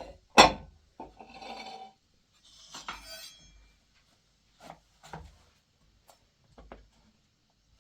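A sharp knock, then scraping and rubbing noises, followed by a few lighter knocks: objects being handled and moved about.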